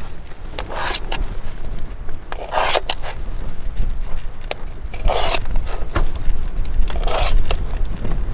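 Steady low wind rumble on the microphone, with a short scraping or rubbing noise about every two seconds.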